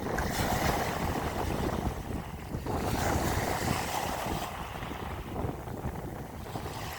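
Sea waves surging and washing, two surges about three seconds apart, with wind rumbling on the microphone.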